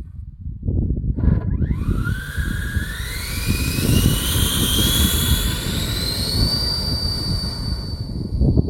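120 mm electric ducted fan of a model Mirage III jet spooling up: a whine starts about a second and a half in, rises steadily in pitch for about five seconds, then holds steady at full power. A low rumble runs underneath throughout.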